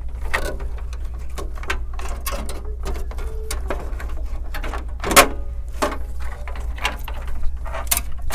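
Gloved hands moving power cables and fitting a motherboard into a PC case: irregular clicks, rustles and knocks of plastic and metal, the loudest about five seconds in, over a steady low hum.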